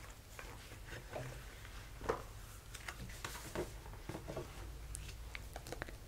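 Soft, scattered clicks and rustles close to the microphone as cards from a wildlife fact file binder are handled and searched through.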